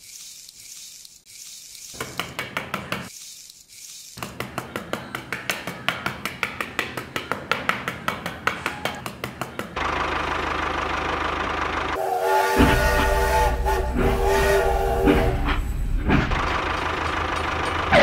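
Train sound: a regular clacking at about three beats a second, then a louder steady rumble with a whistle sounding from about twelve to sixteen seconds in.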